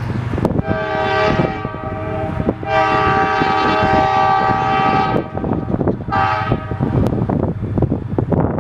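Diesel locomotive's multi-chime air horn sounding two long blasts and a short one, the pattern of a grade-crossing warning, over a steady low rumble.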